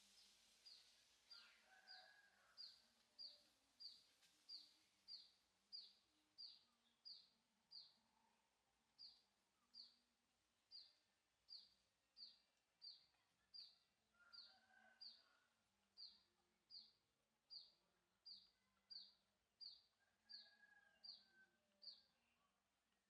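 A bird repeating a short, high, falling note over and over, a little under twice a second, with one brief pause partway through. A few fainter, lower calls sound now and then in the background.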